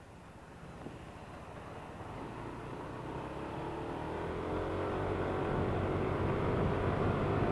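Yamaha NMAX scooter's single-cylinder engine pulling away and accelerating, growing steadily louder and rising in pitch from about four seconds in as the scooter gathers speed.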